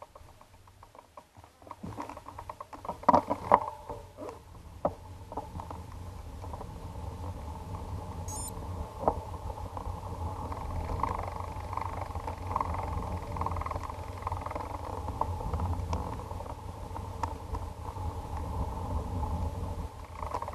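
Knocks and clicks two to four seconds in as the bike gets moving, then a steady rumble with a rattle as a road bicycle rolls over tiled paving, picked up by a camera mounted on the bike.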